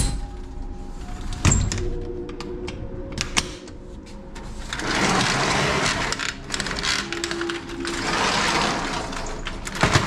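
A sliding glass balcony door knocks shut against its frame, with a second knock a moment later. Then come clicks, rattles and a rustle as wooden louvred shutters are swung closed, ending in a sharp knock as they shut near the end.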